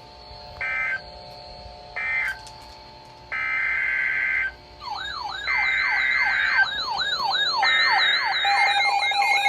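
Emergency Alert System data bursts. First the last two of three short end-of-message bursts, then from about three seconds in the longer header bursts that open the next warning. From about five seconds in, a fast yelping siren sweeps up and down about twice a second over the bursts. Near the end a steady alert tone begins.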